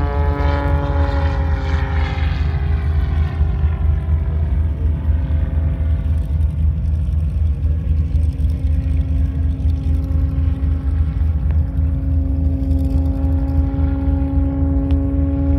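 Aerobatic biplane's propeller engine droning overhead, its pitch sagging slightly in the first couple of seconds, then holding steady and growing stronger near the end, over a steady low rumble.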